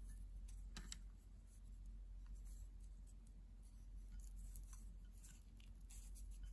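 Faint, scattered light clicks of disposable wooden chopsticks being handled, over a low steady hum.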